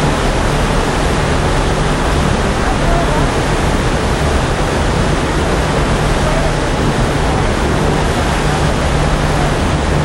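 Loud, steady rushing of wind and churning propeller wake off the stern of the SS Badger carferry under way, over a steady low hum from the ship's machinery.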